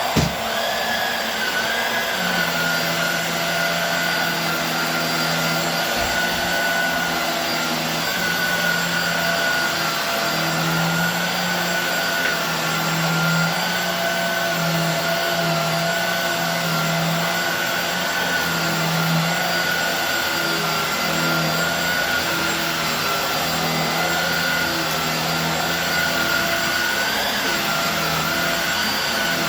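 Hoover Air Steerable WindTunnel upright vacuum cleaner running at full speed as it is pushed back and forth over a rug: a steady motor whine over a low hum that swells and fades with each stroke. There is a sharp click at the very start.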